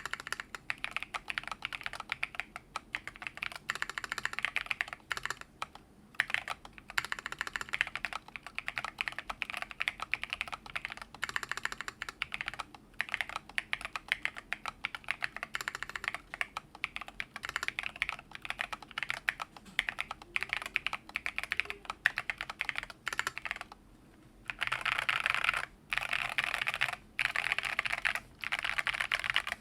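Mechanical keyboard with lubed Holy Panda tactile switches and thick PBT MT3 keycaps, typed on quickly in steady runs of keystrokes with short pauses. Near the end come two stretches of very rapid, tightly packed keystrokes.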